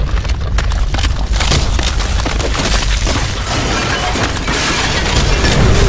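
Earthquake sound effects from a film: a continuous deep rumble with dense crackling and crashing of stone masonry breaking apart, getting louder in the second half.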